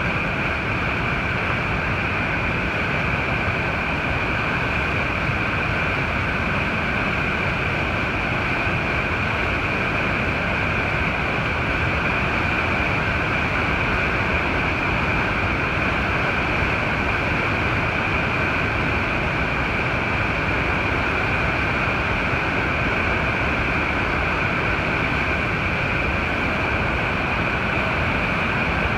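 Upper Falls of the Yellowstone River, the swollen river pouring over the 109-foot drop: a loud, steady rush of falling water.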